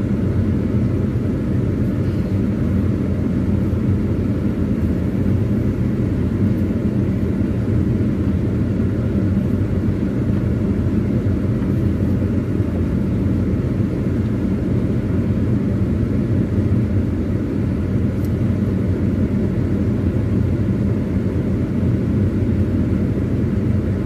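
Car driving slowly on a sandy forest dirt track, heard from inside the cabin with the windows open: a steady low rumble of engine, tyres and air.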